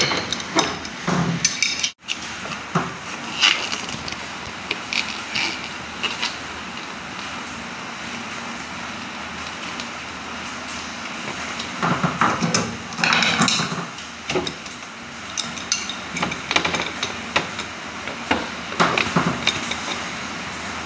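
Steel wrenches clinking and scraping against each other and against a brass flare nut as the copper refrigerant line connections of a split air conditioner's indoor unit are tightened. The clinks come in irregular clusters, busiest a little past the middle, with a quieter spell before it.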